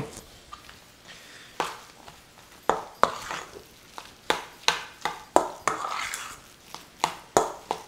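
Metal spoon stirring and scraping crab cake mixture around a metal mixing bowl, a string of irregular clinks and scrapes, about a dozen, mostly after the first second and a half.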